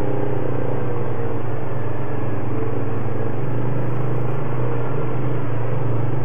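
ATV engine running at a steady speed while riding the trail, its low drone holding an even pitch.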